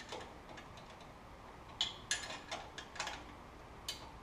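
Hand ratchet clicking in a few short, separate spells as the bolts on an exhaust flange are tightened.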